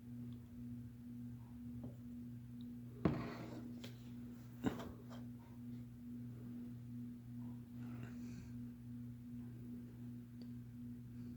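Steady low electrical hum, with two short knocks about three and four and a half seconds in.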